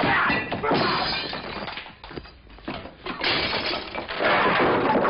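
Crashing and breaking glass from a fight as furniture and glass are smashed, in two loud bouts: one lasting about two seconds, and another starting about three seconds in.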